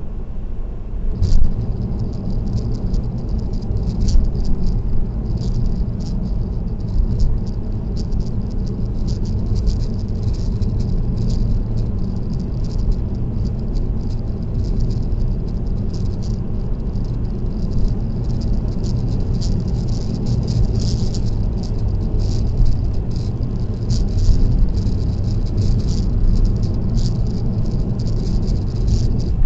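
Car on an expressway with a steady low road and engine rumble, over which a continuous, irregular high-pitched rattle starts with a sharp click about a second in: something loose in the cabin or on the dashcam mount rattling with road vibration.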